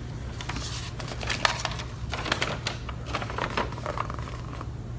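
A folded sheet of paper being unfolded and handled, with irregular crinkling and rustling, over a steady low hum.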